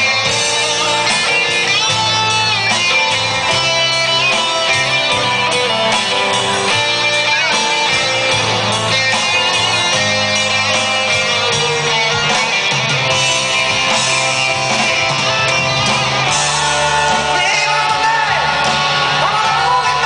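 Live rock band playing through a PA: electric guitars and drums, with a singer.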